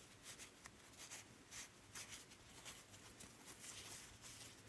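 Faint, irregular light rubbing and scratching as the dust left by a pipe cutter is wiped off the freshly cut end of a towel bar tube.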